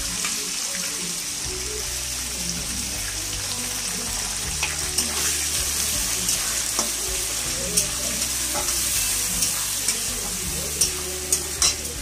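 Sliced onions frying in hot oil in a metal kadai, with a steady sizzle throughout. From about the middle, a metal spatula stirring them taps and scrapes against the pan, with the loudest clicks near the end.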